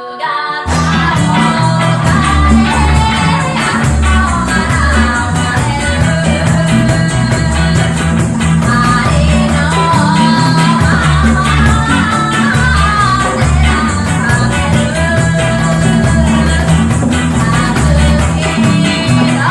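Music with singing over a heavy, repeating bass line and a steady beat, starting abruptly about half a second in.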